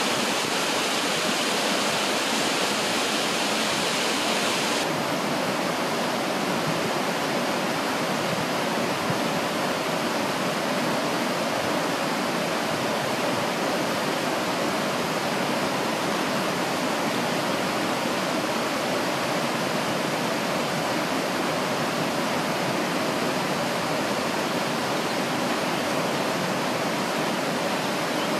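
Shallow, fast river rushing over a stony bed: a steady, even rushing of water. About five seconds in, the high hiss drops away suddenly and the rushing goes on a little duller.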